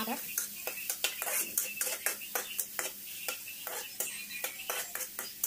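Metal spatula scraping and clinking against a wok in quick, irregular strokes, stirring minced garlic in hot oil, with the oil sizzling underneath.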